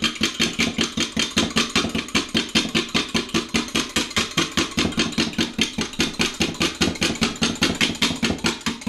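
Fork beating raw eggs in a glass Pyrex measuring cup: quick, even clinks of metal on glass with a wet slosh, about six strokes a second.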